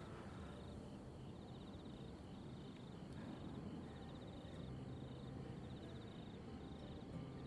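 Crickets chirping in short pulsed bursts, about one a second, over a faint low rumble of open-country ambience.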